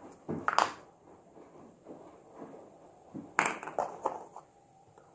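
Hollow plastic Easter egg halves knocking on a hard countertop and being snapped shut: a couple of sharp clicks about half a second in, then a cluster of clicks and taps around three and a half to four and a half seconds in.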